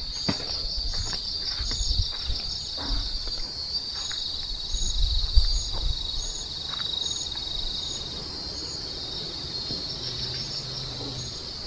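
Night insect chorus of crickets: a steady high trill with a higher chirp repeating a little under once a second, over a few low thumps and rustles of someone walking through undergrowth.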